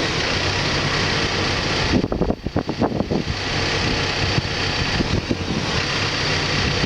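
Backhoe's diesel engine running steadily, with an uneven, choppy stretch of noise about two seconds in.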